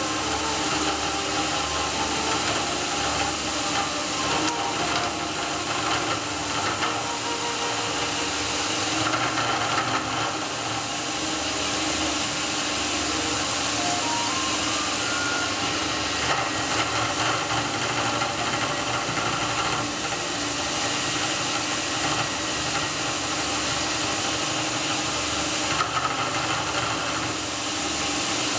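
CNC lathe running: a steady machine whir and hiss, with a few held tones that shift in pitch now and then.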